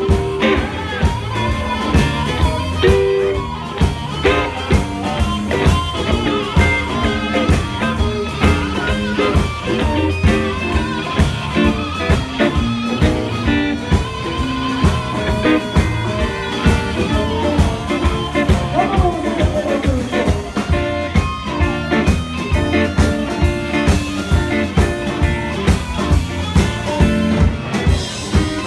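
A blues band playing: guitar over a steady beat.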